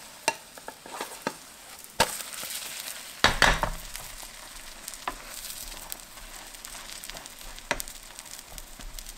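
Egg omelette sizzling in oil in a nonstick frying pan, just flipped. A wooden spatula knocks and scrapes against the pan a few times, loudest about three and a half seconds in.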